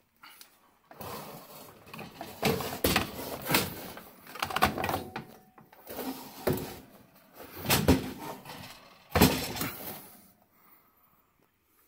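Sheet-metal gas boiler burner assembly clattering and scraping against the boiler housing as it is pushed and shifted into place, with several sharp metal knocks in between.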